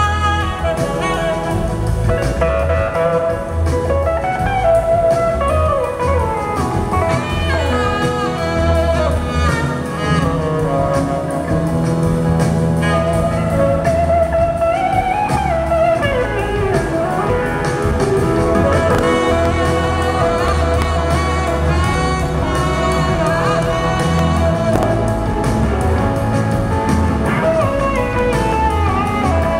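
Live band playing a slow blues-soul song, an electric guitar lead sliding up and down in pitch over bass and drums.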